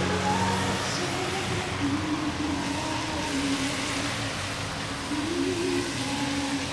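Road traffic passing on a wet street: a car and a small van driving by, engines running under a steady hiss of tyres on the wet road.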